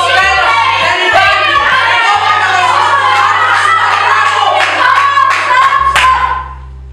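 A group of young voices singing a song together with hand claps, ending on a long held note near the end before stopping.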